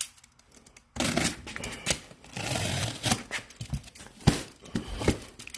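Cardboard shipping boxes being opened by hand: irregular rustling, tearing and scraping of packaging, with a few sharp knocks near the end.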